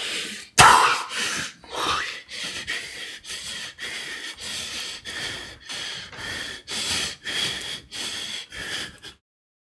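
A person breathing hard in quick breathy gasps, about two a second, after a sharp loud burst a little after the start. It stops abruptly near the end.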